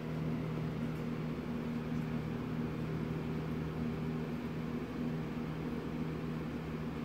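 Steady low hum of a running appliance motor, a few unchanging low tones.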